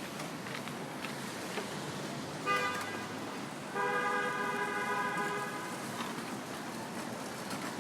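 A car horn honks twice: a short toot, then a longer blast of about two seconds, over the steady hum of street traffic.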